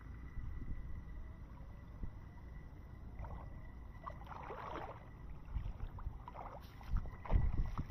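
Footsteps of a person in sandals sloshing through shallow muddy water and onto a wet bank, with a patch of splashing about halfway through and a few heavier thumps near the end. A steady low rumble runs underneath.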